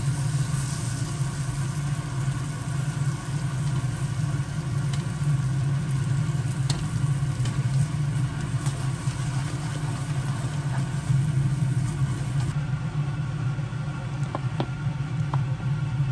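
Food sizzling in a frying pan, with scattered sharp crackles over a steady low hum.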